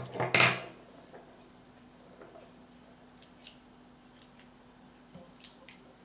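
Brass dimple lock cylinder and metal picking tools handled on a wooden table: a loud metallic clatter in the first half-second, then scattered light metal clicks and taps as the tools are set down and fitted to the lock.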